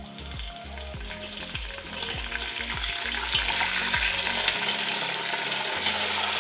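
Raw chicken pieces going into hot oil with fried onions and sizzling as they fry. The sizzle grows louder about two seconds in as more pieces go in.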